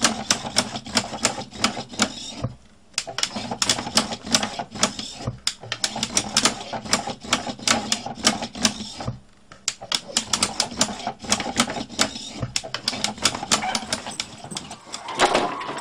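Useless-machine box: metal toggle switches clicking as they are flipped, and the box's small motor-driven arm and lid clacking as they push the switches back. A fast string of sharp clicks with brief pauses. Near the end the clicking stops and a louder, rougher noise takes over.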